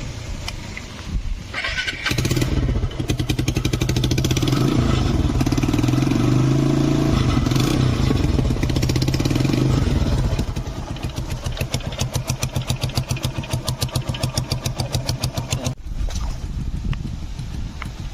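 TVS Apache single-cylinder motorcycle engine running with its exhaust detached, so each firing pulse comes through loud and raw. It is held at raised revs for several seconds, then drops back to a slower, pulsing idle about ten seconds in.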